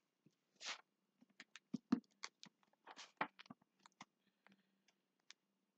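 Faint, irregular clicks and a short rustle from handling things close to a computer's microphone.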